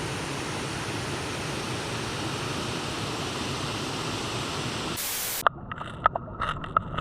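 Steady rushing noise, heaviest in the low range. About five seconds in it gives way to a brief high hiss, then a quieter stretch with a few short clicks.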